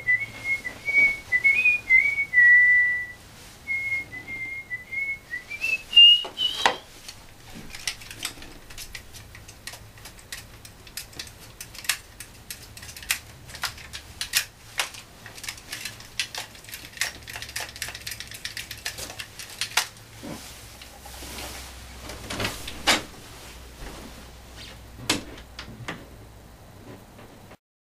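A person whistling a short wavering tune, ending in a quick upward glide about six seconds in. After that, scattered clicks and knocks of things being handled.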